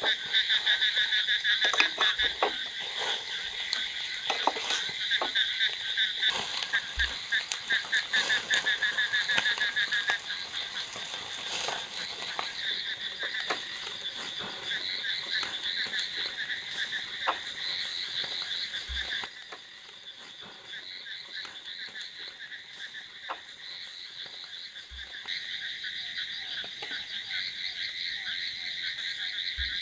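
Chorus of frogs calling: rapid, pulsing trills that overlap continuously. The chorus is loudest in the first ten seconds and drops a little about two-thirds of the way through. Scattered light clicks and taps of cooking utensils on the grill sound over it.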